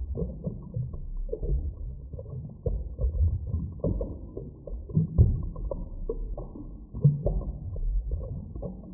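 Muffled underwater ambience: a low rumble with irregular bubbling gurgles and pops, all dull and deep with no bright sound above it.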